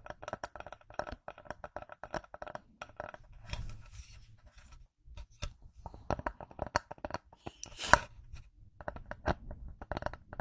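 Rapid tapping on a small wooden object, each tap ringing with the same hollow tone, broken by a short rubbing sound about a third of the way in and one louder knock near the end.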